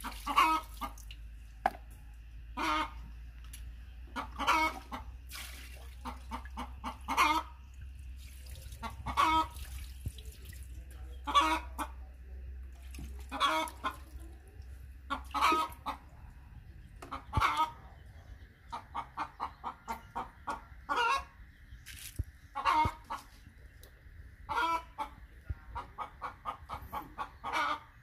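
Chickens clucking, short calls every second or two with a couple of runs of quick clucks.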